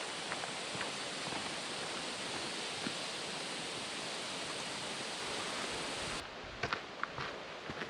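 Steady rush of running water from a trail-side stream, cutting off abruptly about six seconds in. Irregular footsteps on the trail follow near the end.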